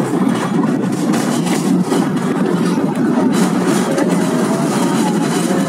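San Francisco cable car rolling along its track, a steady rumble.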